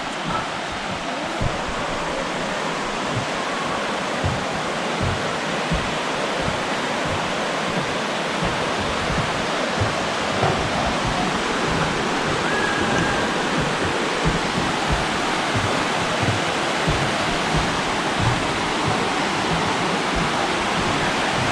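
Steady rushing of river rapids, with irregular soft low thumps throughout.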